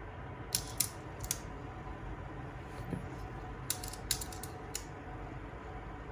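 Sharp small clicks and ticks from the Aiwa HS-PX610 walkman's cassette mechanism being worked during a play test, a few about half a second in and a quick cluster near four seconds, over a faint steady hum.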